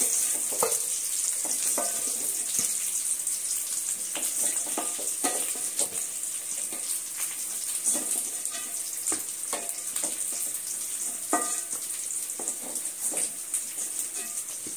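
Small brinjals frying in sesame oil in a steel kadai with a steady sizzle, while a wooden spatula scrapes and knocks against the pan, with occasional short ringing taps on the steel.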